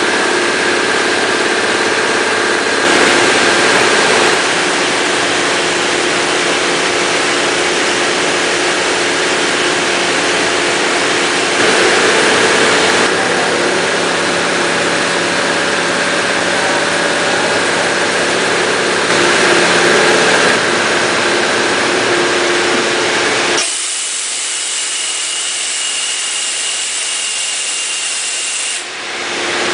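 Industrial parts washing machine running: a loud, steady hiss with a hum, swelling briefly three times. About 24 seconds in it changes to a thinner, high hiss with a faint whistle for about five seconds, then the fuller noise returns.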